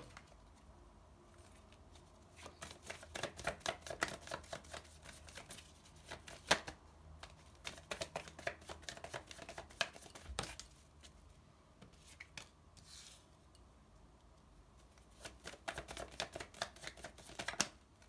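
A deck of tarot cards being shuffled by hand, in three runs of rapid card clicks and flicks with short pauses between them.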